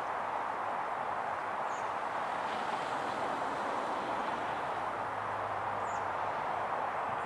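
Steady outdoor background rushing noise with a few faint, short high chirps.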